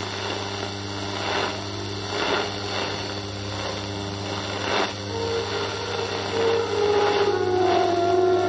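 Shortwave radio tuned to a weak 4750 kHz broadcast: hissing, crackling static over a steady hum, the signal buried in noise because propagation is very poor. About five seconds in, faint held musical notes begin to come through the noise.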